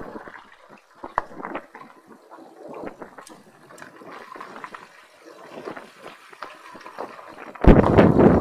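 Faint scattered clicks and rustles, then near the end a loud rush of wind buffeting the microphone starts abruptly.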